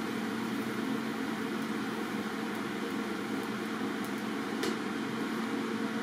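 TIG welding rig running: a steady hum, with a single tick about four and a half seconds in.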